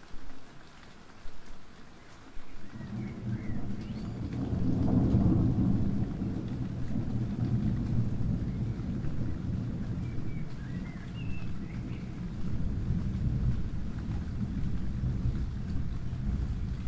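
Thunder rumbling over steady rain. The rumble comes in about two and a half seconds in, swells around five seconds and goes on rolling at a lower level.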